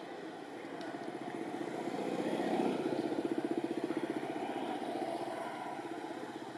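A motor vehicle's engine running nearby, with a rapid pulsing hum that gets louder about two seconds in and then slowly fades, like a vehicle going past.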